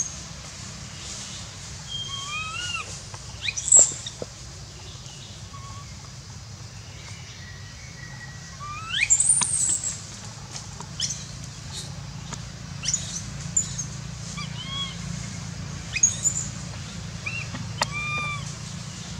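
Baby macaque crying in short, arched, whistly calls every second or two, with two louder, higher rising squeals about four and nine seconds in.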